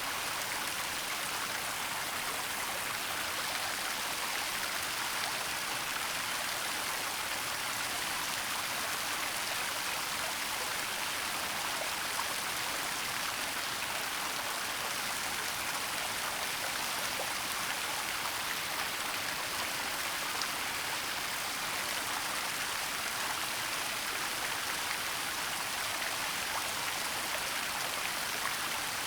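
Waterfall rushing steadily: a dense, even hiss of falling water with little deep rumble.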